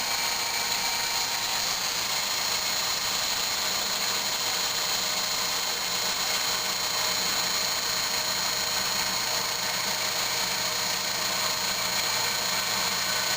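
Flotec sump pump motor running steadily while pumping water out of its pit, with a few steady whining tones in the noise.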